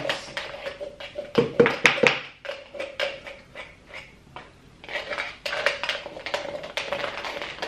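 Tableware being handled: a run of sharp clicks and scrapes, densest about one and a half to two seconds in and again from about five seconds in.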